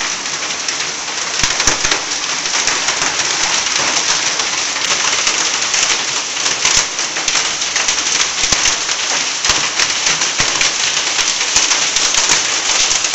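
Heavy rain mixed with hail falling on concrete paving: a dense, steady hiss with many sharp ticks of stones striking.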